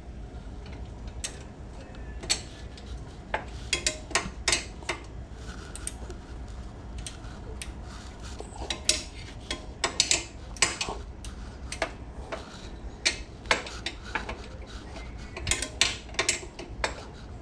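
Wrench and socket clinking against the steel axle nut and swing-arm hardware of a Yamaha Warrior 350 ATV, in irregular sharp metal clicks as the nut is worked loose.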